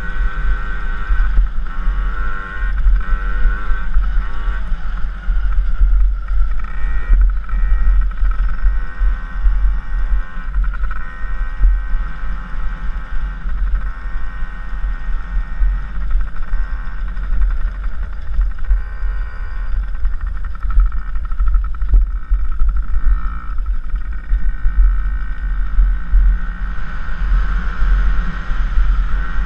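Dirt bike engine running hard, its pitch rising and falling repeatedly as the rider accelerates and shifts, with heavy wind buffeting on the helmet-mounted microphone.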